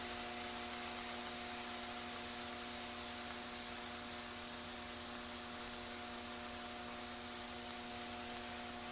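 Steady electrical mains hum, a low buzz of several even tones, over a faint steady hiss: the recording's noise floor, with no cooking sizzle to be heard.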